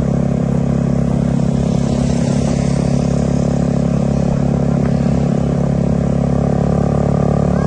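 A vehicle engine running steadily, close by, without revving.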